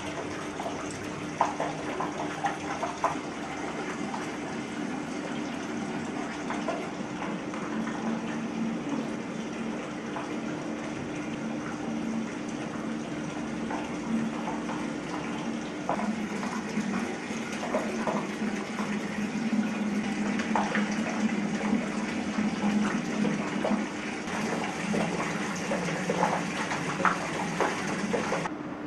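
Water running from a chrome wall tap and splashing into a bucket as it fills.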